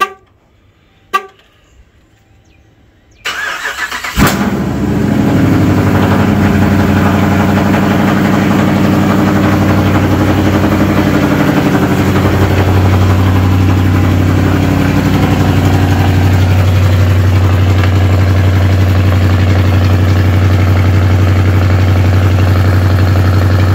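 Two short sharp sounds, then about three seconds in the starter of a Dodge Challenger R/T's 5.7-litre HEMI V8 cranks for about a second. The engine catches with a loud flare and settles into a steady cold-start idle.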